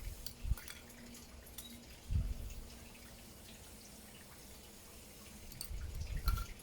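Polystyrene foam being sliced on a hot-wire cutter: the cut itself is quiet and squeak-free, with faint crackling ticks and a few dull bumps as the foam block is handled and pushed along the wire. A faint low hum comes and goes.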